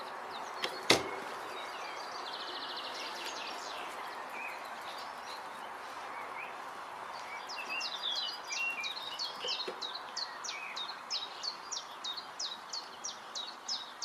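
A songbird singing a string of short, high, sharply falling notes, about two a second, in the second half, with a quick high trill a little earlier. Under it is a steady outdoor hiss, and there is one sharp click about a second in.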